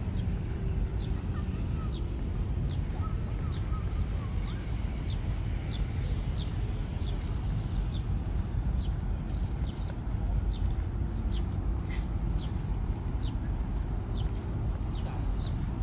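A bird's short high chirps, repeated about once or twice a second, over a steady low rumble.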